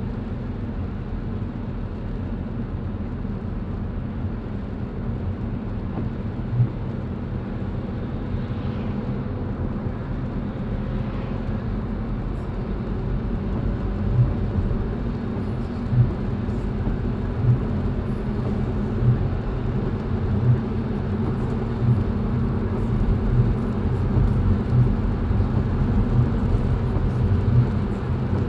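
Steady low road and tyre rumble of a car driving on wet roads in the rain, heard from inside the car. From about halfway through, a soft knock repeats about every second and a half.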